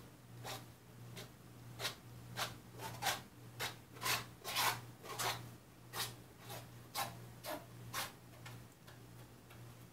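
A hand tool scraping and smoothing wet white base-coat paint across a stretched canvas, in short repeated strokes about two a second, loudest in the middle of the run.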